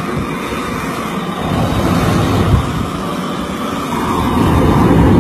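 Handheld flamethrower spraying a long jet of burning fuel: a steady rushing roar that grows louder near the end.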